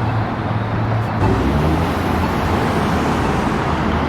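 Road traffic: motor vehicles running close by, with a low engine drone that shifts to a lower pitch about a second in.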